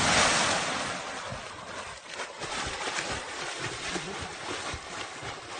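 Heavy water splashing as a person plunges into a lake, loudest at first and fading over about two seconds into uneven churning and splashing as he struggles in the water.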